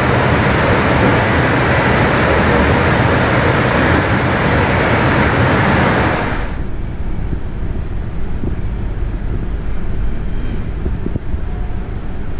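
Steady airport ambient noise: a loud, even rush that gives way about six and a half seconds in to a duller, lower rumble.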